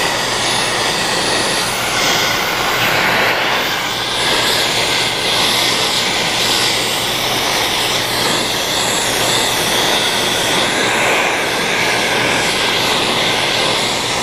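Wire-feed (MIG) welder arc crackling steadily while the spider gears of a Mazda Miata's open differential are welded to the carrier to lock it into a welded diff.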